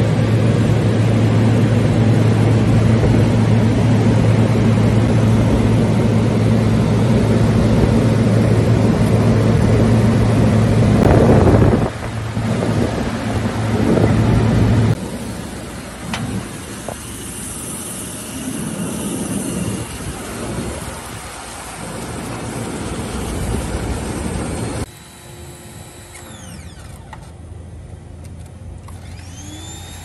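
Pressure washer running and spraying water onto a dirt-caked condenser coil: a steady motor hum under the hiss of the spray. The sound drops abruptly and changes three times, about 12, 15 and 25 seconds in, getting quieter each time.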